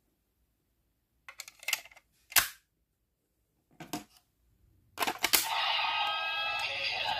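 Sharp plastic clicks and snaps from a Premium DX Laser Raise Riser transformation toy being handled. About five seconds in, the toy's speaker starts an electronic sound effect with several chirpy synth tones.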